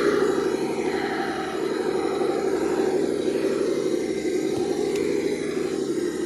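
Electric motor and drivetrain of an RC rock crawler running steadily, its whine wavering up and down in pitch as the throttle changes.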